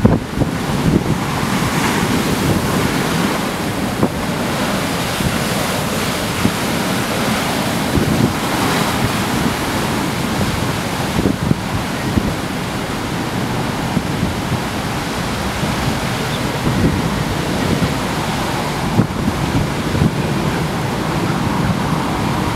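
Storm waves breaking against a harbour pier wall in a gale, a continuous surf noise with strong wind gusting and buffeting the microphone in irregular bumps.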